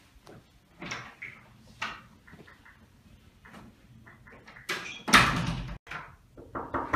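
Room door being handled: scattered latch clicks, then a loud sudden thud of the door about five seconds in that cuts off abruptly, and a few sharp knocks on the door near the end.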